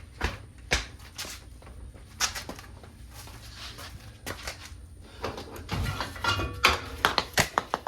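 Irregular knocks and clinks of metal trailer hardware being handled and fitted, some with a short ring, coming thick and fast in the last few seconds.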